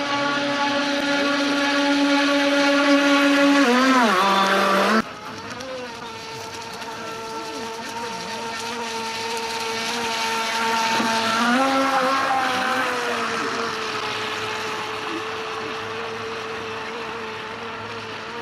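Radio-controlled boat's electric motor running with a steady high whine. The pitch wobbles and dips about four seconds in, the sound drops off suddenly about a second later, and the whine carries on lower and steadier, swelling briefly in pitch around the middle.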